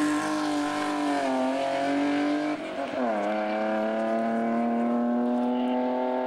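Hillclimb race car engine running hard at high revs, its pitch dipping and rising with throttle and gear changes in the first few seconds, then holding a steady high note as the car pulls away up the road.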